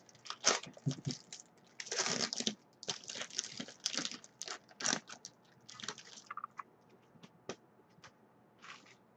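Trading-card pack and cards being handled and opened: a run of irregular crinkly rustles and sharp clicks, thinning to a few scattered clicks after about six seconds.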